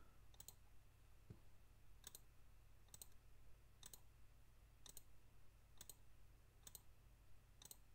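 Faint computer mouse clicks, about one a second, each a quick double tick of the button pressed and released.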